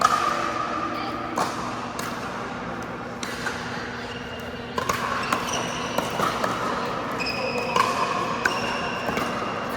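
Pickleball play: irregular sharp pops of paddles hitting the plastic ball and the ball bouncing on the court. Short high squeaks come between the hits, more of them in the second half.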